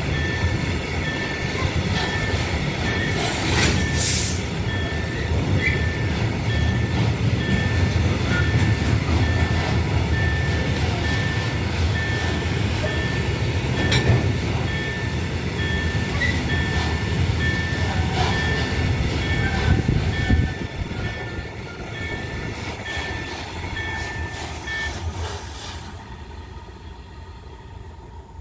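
Freight train of flat wagons loaded with steel coils rolling past, a steady heavy rumble of wheels on rail with scattered clicks. About two-thirds of the way in, the last wagons pass and the sound fades away as the train recedes.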